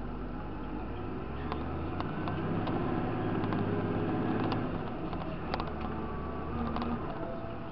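Tractor engine heard from inside the cab, revs climbing for a few seconds and then easing off about five seconds in, with scattered clicks and rattles over it.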